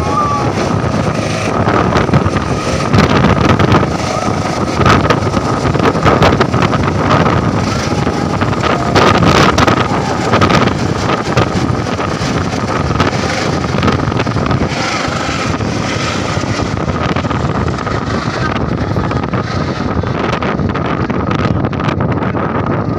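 Helicopter taking off and climbing away: a steady turbine whine over loud rotor noise, with wind buffeting the microphone. The sound loses its upper edge in the last several seconds as the helicopter gets farther off.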